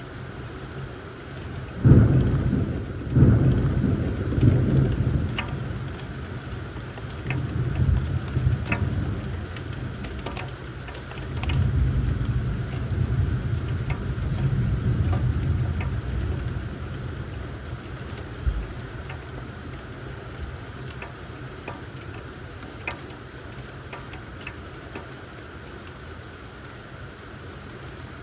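Thunder over steady rain, with drops ticking throughout. A sudden loud clap about two seconds in rolls on in several peals for a few seconds. A second long rumble swells in the middle and dies away.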